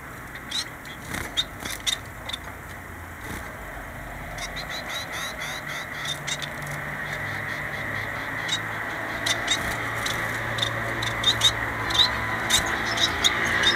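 Small caged finches giving short, high chirping calls, scattered at first and coming thicker and quicker in the second half. Under them runs a low steady hum that builds from about four seconds in.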